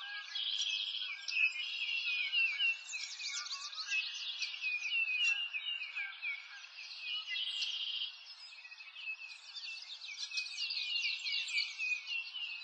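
Many birds chirping together in a dense chorus of quick, overlapping calls over a soft hiss, dipping in loudness about two-thirds of the way through.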